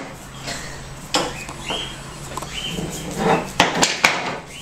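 Knocks and clatter of a broom being bitten and tussled with by a Rhodesian Ridgeback puppy: a sharp knock about a second in and two more near the end, with a few short high squeaks in between.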